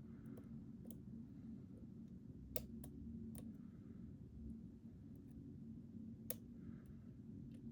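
Faint, scattered clicks of lock-picking tools working the pins of a Mul-T-Lock Interactive LFIC lock cylinder, over a steady low hum. The two sharpest clicks come about two and a half and six seconds in.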